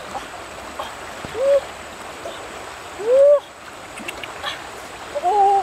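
White domestic duck, held in a person's arms, giving three short calls that rise and fall in pitch, over the steady rush of a river.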